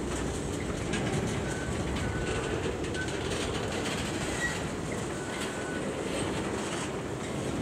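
Freight train cars rolling past on the rails: a steady rumble, with short faint wheel squeaks several times.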